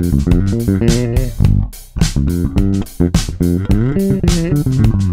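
Five-string electric bass played fingerstyle: a quick, busy run of notes with sharp, bright attacks, with a few notes sliding in pitch about four seconds in.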